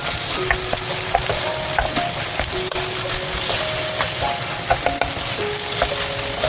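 Eggplant stir-frying in a pan: a steady sizzle as it is stirred, with a few light clicks of the utensil against the pan.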